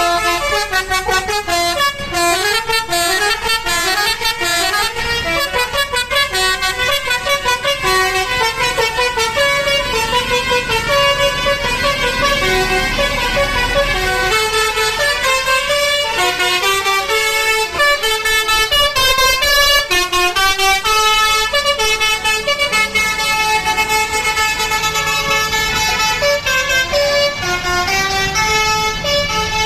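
Indonesian bus 'telolet basuri' musical air horns sounding a continuous fast melody of short stepping notes, several tones overlapping.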